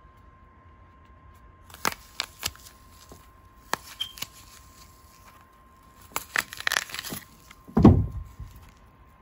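Crisp green apple crunching: a few sharp cracks spread through the first half, a burst of crunching a little past the middle, and a low thump near the end.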